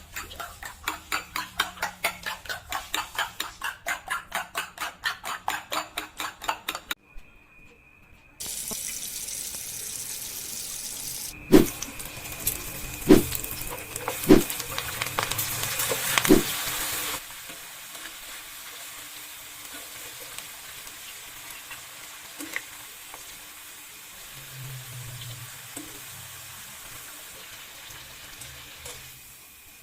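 Kitchen prep and cooking sounds. First comes a quick, even run of cutting strokes, about four a second, for several seconds. Then a stretch of steady rushing water with a few sharp knocks, which settles into a fainter steady frying sizzle.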